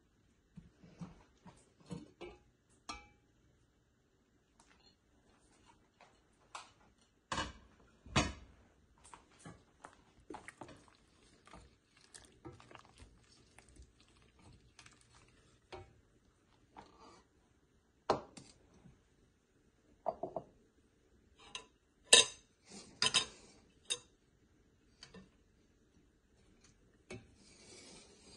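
Cookware being handled: scattered clinks and knocks from a stainless steel pot, its glass lid and a wooden spoon stirring soup, with quiet gaps between. The loudest knocks come about eight seconds in and again a little past twenty seconds.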